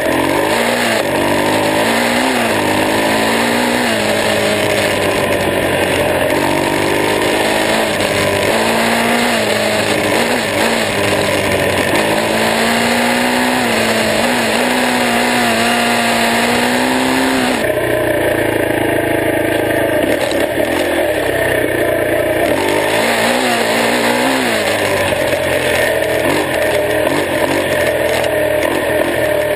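Honda XR250R dirt bike's air-cooled single-cylinder four-stroke engine running under way, its pitch rising and falling again and again with throttle and gear changes. It holds steadier for a few seconds, then drops sharply a little past halfway.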